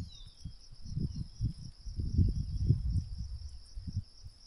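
Insects chirring steadily in high, unbroken tones over a background of irregular low rumbles and thumps, which are loudest a little past the middle.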